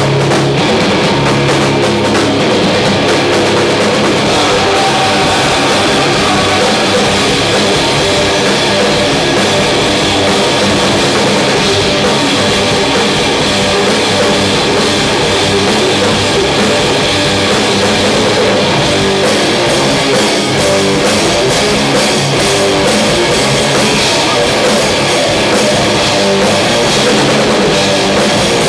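Metal band playing live and loud: distorted electric guitars, bass guitar and a Tama drum kit in a dense, unbroken riff.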